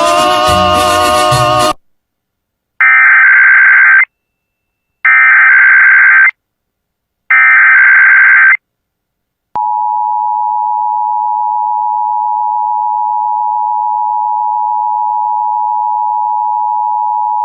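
Emergency Alert System required weekly test. Broadcast program audio cuts off, then three identical screeching digital SAME header data bursts sound about a second apart. These are followed by the steady two-tone EAS attention signal (853 and 960 Hz), held for about eight seconds.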